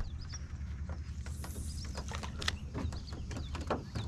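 Scattered, irregular clicks and ticks from a spinning rod and reel being handled and worked, with faint high bird chirps.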